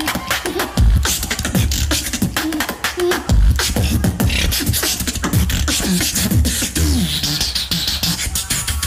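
Beatboxing in a battle round: a fast, dense run of mouth clicks and snares over heavy bass hits and short bending bass tones, with the deepest bass drops about a second in and again around three and a half seconds.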